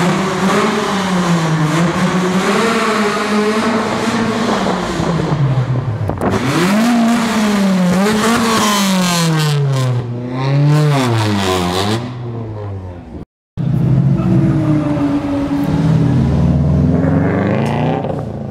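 Car engines revving hard through loud exhausts, the engine note rising and falling in quick swings, one car after another. The sound cuts out for a fraction of a second about thirteen seconds in, then another car revs and accelerates.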